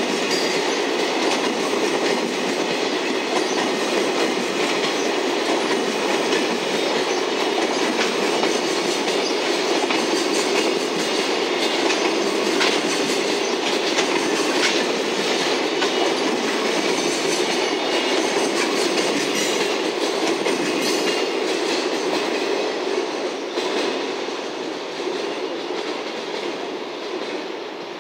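Freight train's container wagons rolling past, a steady noise of steel wheels on rail with a few joint clacks, fading over the last several seconds as the tail of the train draws away.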